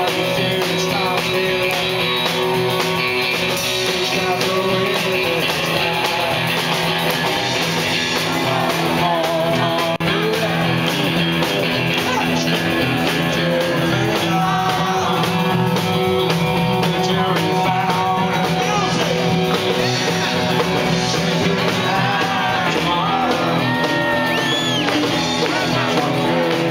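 Live rock and roll band playing: a man singing over electric guitar and drums.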